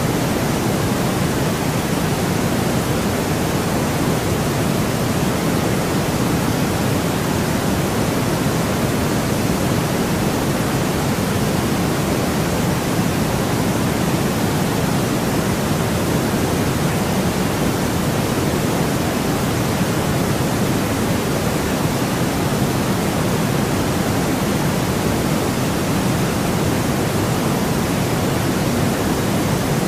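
Steady artificial white noise: an even, unchanging hiss with a fuller low end.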